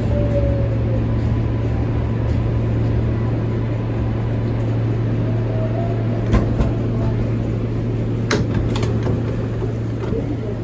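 Interior noise of an R143 subway car running on the track: a steady low hum and rumble of wheels on rail, with a faint whine that slides in pitch. A couple of sharp clanks come about six and eight seconds in.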